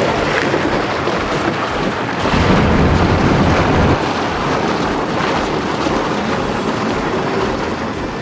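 Plastic kayak hull sliding down a hillside with a person in it, a steady rough scraping rumble that grows louder for a couple of seconds in the middle.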